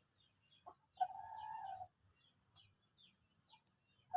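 A chicken gives one drawn-out call lasting about a second, starting about a second in. Faint, high chirps, each falling in pitch, repeat about three times a second in the background.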